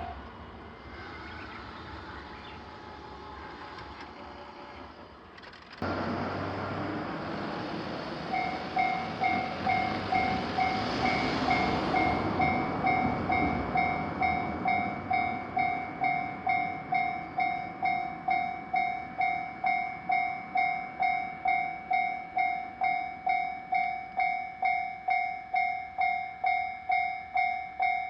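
A train passes a Japanese level crossing, loudest about a third of the way in. As it passes, the crossing's warning bell starts and rings steadily at about two strokes a second.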